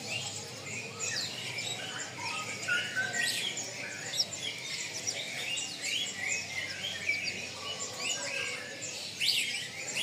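Many caged sunbirds (kolibri ninja) chirping and twittering together: short, high notes that overlap one another.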